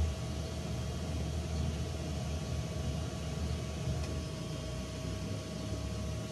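Small fan running on a filament dry box, a steady thin whine over a low hum, pushing air through the box to dry the filament.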